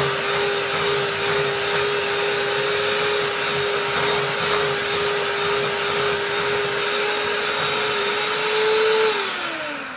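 Electric hand mixer running steadily at one pitch, its beaters creaming cream cheese and peanut butter in a glass bowl. About nine seconds in the motor whine rises briefly, then falls away as the mixer winds down.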